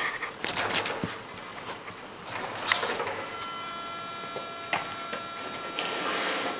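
Radio-controlled King Hauler dump truck's electric drive and gearbox as the truck creeps along: mechanical whirring with a few sharp clicks, settling into a steady high whine about three seconds in.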